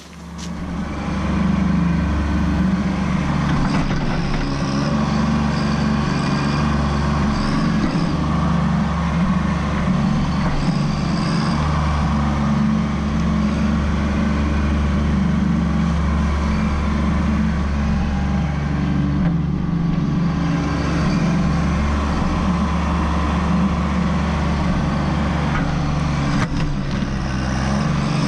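Kubota B2601 compact tractor's three-cylinder diesel engine running steadily as the front-loader stump bucket digs soil and roots out around a stump. The sound swells in over the first second or two, then holds at an even level.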